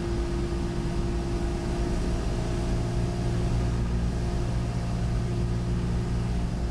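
Steady drone of a Cessna 172's engine and propeller in flight, heard inside the cockpit.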